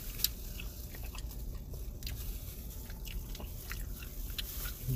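People chewing food, with faint scattered clicks and crackles and one sharper click about a quarter second in, over a low steady hum.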